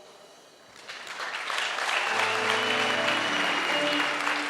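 Applause from a congregation, building up from about a second in. Sustained musical chords enter underneath about two seconds in.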